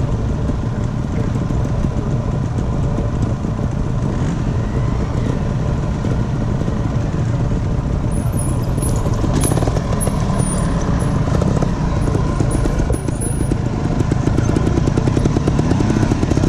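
TRS trial motorcycle engine running at low revs, getting louder near the end and revving up as the bike comes close.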